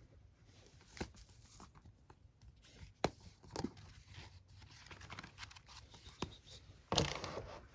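Merchandise packaging being handled and opened: a few sharp taps and clicks, then a short tearing, crinkling rustle near the end.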